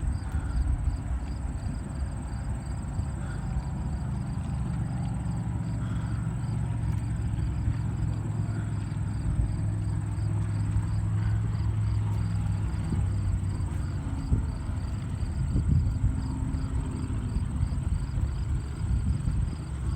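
Racing hydroplane engine drone carried across the water, a steady low hum that swells a few seconds in and fades about two-thirds of the way through, over wind buffeting the microphone. Insects chirp in an even pulse a few times a second throughout.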